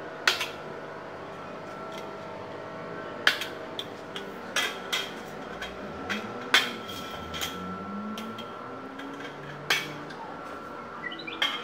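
Aviation snips cutting through a metal drywall profile and the profile being bent by hand: a series of sharp metallic snips and clanks, irregularly spaced a second or more apart.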